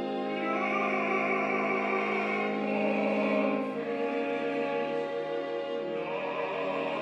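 Operatic singing with a small instrumental ensemble in a live performance of a late-Romantic cantata: sustained chords with vocal vibrato, swelling in the first second and holding.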